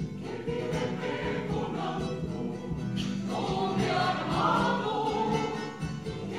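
Live Chilean folk music: a mixed group singing together, accompanied by strummed acoustic guitars, a large bass drum and accordion.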